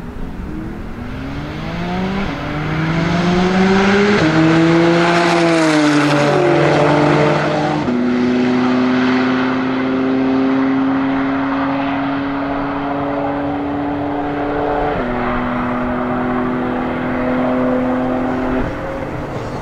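A Porsche 991 Turbo S, tuned to 820 hp, with its twin-turbo flat-six, and a BMW accelerating flat out side by side from a rolling start. The engine notes climb in pitch and then drop sharply at each upshift, several times over.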